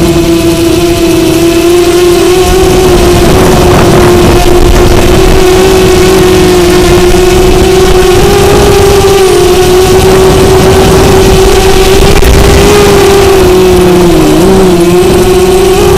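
Drone motors and propellers whining loudly at a steady pitch as the drone climbs, heard close from the camera it carries, over a low rumble of air. The pitch wavers and dips briefly near the end.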